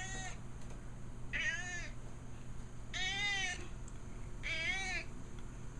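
Grey house cat, 14 years old, meowing four times about a second and a half apart, each call rising then falling in pitch: the insistent begging meows of a cat wanting something.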